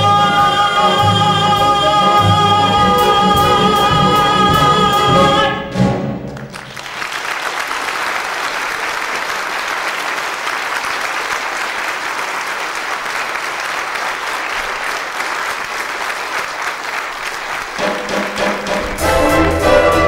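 A woman's voice and a theatre orchestra hold the final note of a musical number, cutting off together about six seconds in. The audience then applauds for about eleven seconds, and near the end the orchestra starts up again with brass.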